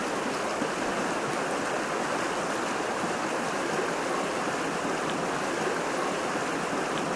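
Steady rushing of flowing water, like a stream, with a few faint ticks.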